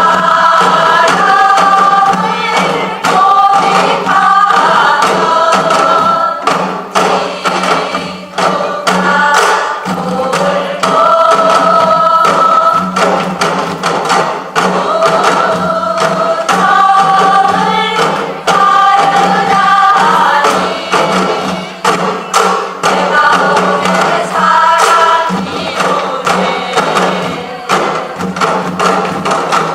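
Music: a group performing a melody in unison over an accompaniment with a steady beat and a sustained low note.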